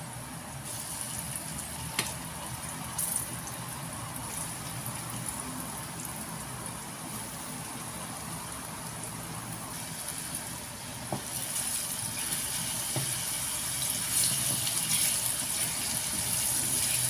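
Flour-coated egg tofu rounds frying in hot oil in a non-stick pan, a steady sizzle that grows louder in the second half. A few light knocks come from pieces being set in and turned with a wooden spatula.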